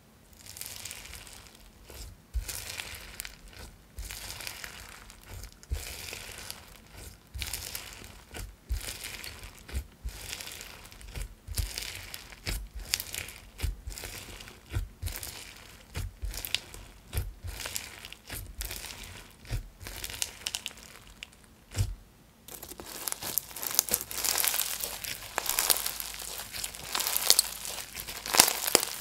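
Pink slime crunching as fingers press into it over and over in its tub, a short crunch with each press, from the beads mixed through and topping it. About 22 seconds in, the slime is pulled up and stretched, and the crackling turns denser and louder.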